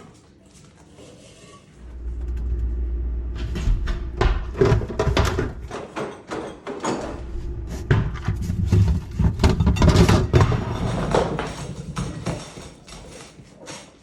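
Irregular knocks, clatters and rustling, as of objects being bumped and handled. A low rumble starts about two seconds in and fades out around six seconds.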